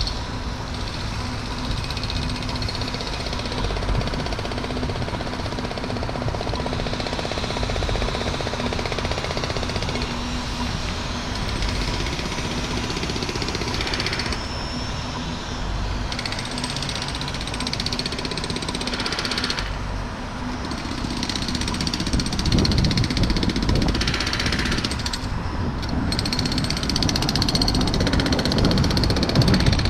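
Steady outdoor street noise of road traffic beside a wide road, with a low rumble that grows louder in the last third.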